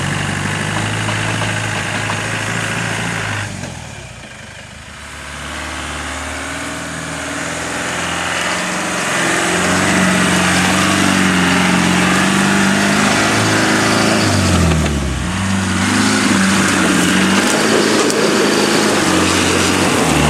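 Land Rover engine revving hard under load as the vehicle tries to drive out of being stuck in sawdust. The revs rise and fall, easing off about four seconds in and dropping sharply about two-thirds of the way through before picking up again.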